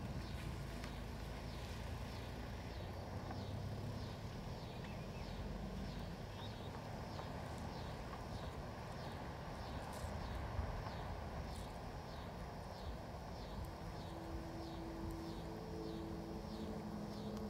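Rural outdoor ambience: a high chirp repeating evenly a couple of times a second over a steady low rumble. Low sustained tones come in near the end.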